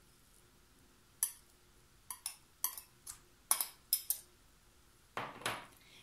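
Short clinks and knocks of kitchenware: a small glass bowl and a wire whisk handled against a plastic mixing bowl, about nine sharp taps starting about a second in, then a brief longer scrape near the end.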